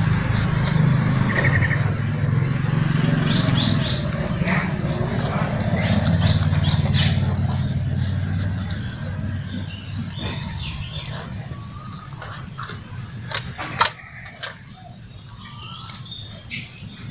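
Puppies eating from a metal tray: licking and clinking against the tray, with two sharp knocks about three-quarters of the way through. A low, steady rumble runs under the first half and fades out.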